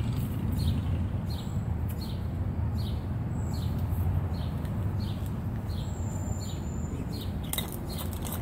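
A songbird calling in a steady series of short chirps, about two a second, with a thin high whistle about six seconds in, over a steady low rumble. A few sharp clicks come near the end.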